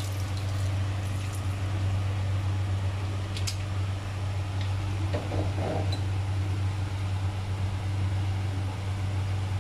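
Steady low hum of a running fan motor, even throughout, with a faint light click about three and a half seconds in.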